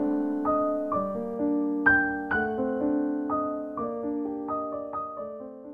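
Soft background piano music: slow single notes struck one after another and left to ring, growing steadily quieter as the phrase fades out.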